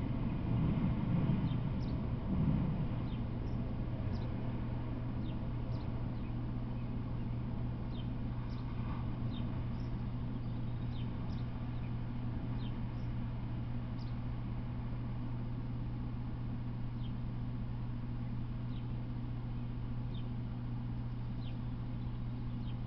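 Birds chirping, short high calls every second or so, over a steady low hum; a low rumble dies away in the first two or three seconds.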